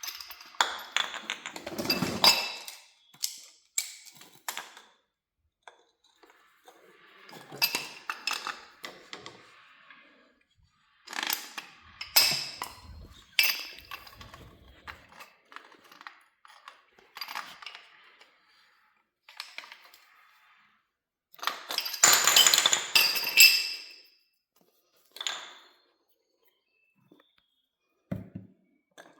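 Clinking and rattling of metal tools and fittings being handled, in short irregular bursts with quiet gaps between them; the longest, loudest bout of clinking comes about three-quarters of the way through.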